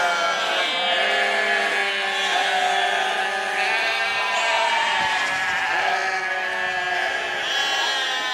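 A flock of sheep bleating, many calls overlapping without a break.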